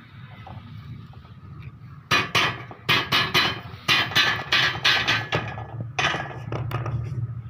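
Hammer blows on a square-tube steel frame with wire mesh: a quick run of about fifteen sharp metallic strikes, two to three a second, starting about two seconds in, each ringing briefly.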